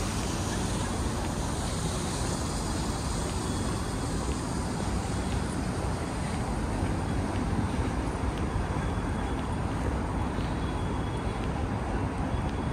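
Steady city traffic noise: a continuous low rumble of passing vehicles, with no single sound standing out.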